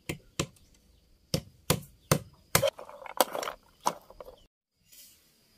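Large knife chopping bamboo against a wooden board: about eight sharp strikes at uneven intervals, splitting it into thin strips.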